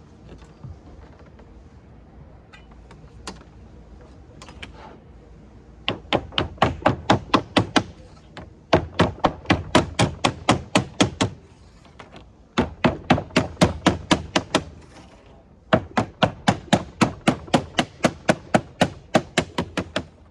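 A plastic lead dresser beating the edge of a sheet of code 4 lead on a wooden bench to dress it over. The strikes come quick and even, about six a second, in four runs of two to four seconds with short pauses between, after a few faint taps at the start.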